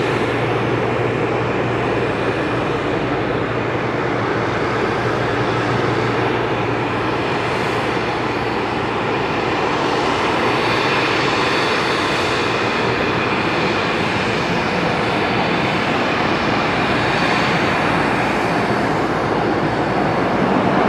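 De Havilland Canada DHC-8-300 Dash 8 turboprop, with Pratt & Whitney Canada PW123 engines, heard on landing: a steady engine and propeller noise at an even level, with a low hum that fades out in the first couple of seconds.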